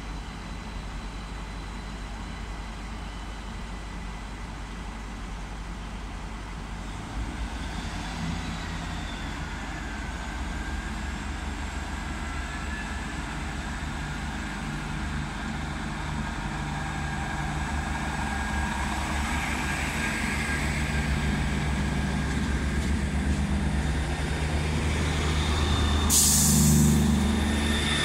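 Class 158 diesel multiple unit's underfloor diesel engines running with a steady low drone that grows louder as the train pulls along the platform and passes close by, with a brief sharp hiss of air near the end.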